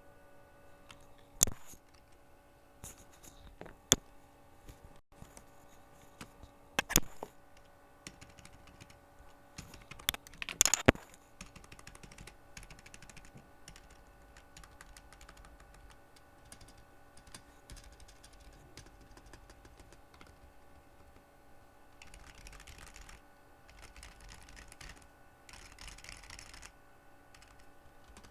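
Old computer keyboard being typed on in a sound test: scattered key clicks throughout, with a handful of much louder, sharper key strikes in the first eleven seconds and a denser run of typing from about 22 to 27 seconds in.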